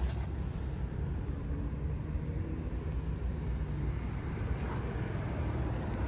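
Steady low outdoor rumble with a faint hum, no distinct events.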